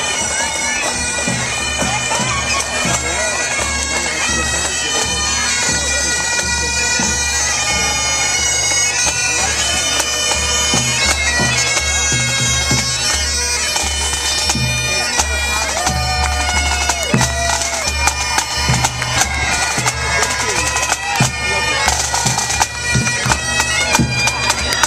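Pipe band playing while marching: bagpipes sound a held drone under a moving melody, with drums beating steadily underneath.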